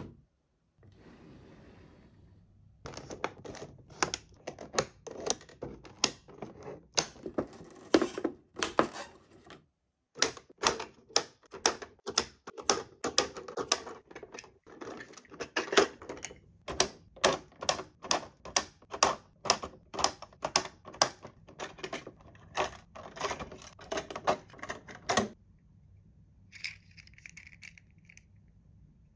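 Rapid, irregular clicking and tapping, two or three clicks a second, from hands handling a toy and its plastic packaging; it stops near the end.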